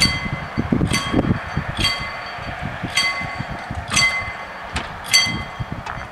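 Level crossing warning bell striking about once a second, each strike ringing out and fading, as the crossing barriers come down for an approaching train.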